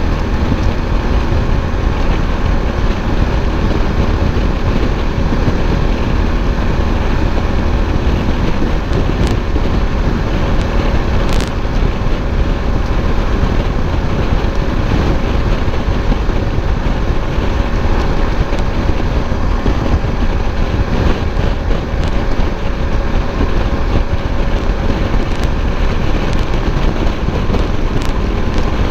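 Suzuki V-Strom 1050 at interstate speed, heard through the rider's microphone: a steady rush of wind noise over the V-twin engine and road noise, with a strong low rumble and no change in speed.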